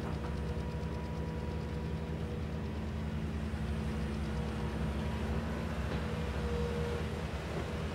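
Diesel engine of a tracked hydraulic excavator running steadily as it digs and loads: a continuous low drone with a faint steady whine above it.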